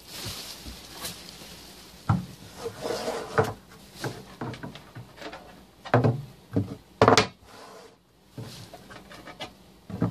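3D-printed plastic shelf pieces being set down inside a cardboard barrel: irregular knocks and scraping as they are placed and shifted into position, with one sharper knock about two-thirds of the way through.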